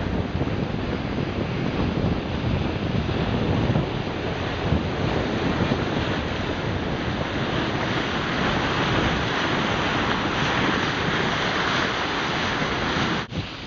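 Wind buffeting the microphone over water rushing and hissing along the hull of a heeled sailing yacht driving through rough seas. The noise is steady and loud, then breaks off suddenly near the end and goes on quieter.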